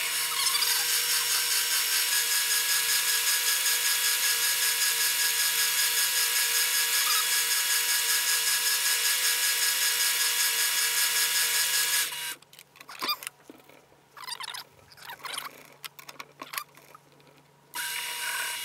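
Grizzly G0768 mini metal lathe running a facing cut across the end of a 2-inch steel part, a steady whine with a pulse of about four a second. The running sound cuts off abruptly about twelve seconds in, followed by a few scattered clicks and knocks.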